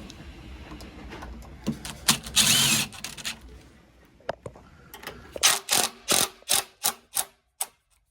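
Hardware and hand-tool sounds from fitting a door lock. There are scattered clicks, a short dense whirring burst about two to three seconds in, then a run of about nine sharp clicks and knocks spaced a fraction of a second apart near the end.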